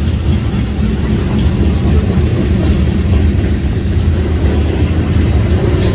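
Norfolk Southern freight train's covered hopper cars rolling past: a loud, steady rumble and clatter of steel wheels on the rails.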